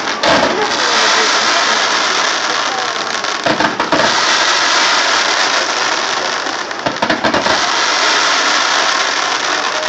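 Fireworks shooting a fan of white sparking comets: a loud, steady hissing rush, with clusters of quick pops about three and a half seconds in and again about seven seconds in.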